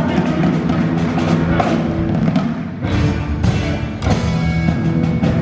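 Live band playing an instrumental passage with no vocals: drum kit and held instrument notes, with cymbal crashes about three to four seconds in.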